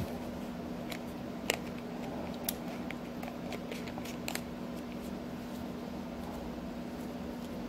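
Small sharp plastic clicks and handling noise from fingers working the cap and nozzle of a plastic squeeze bottle of yellow mustard, a few scattered clicks, the clearest about one and a half and two and a half seconds in, over a steady low hum.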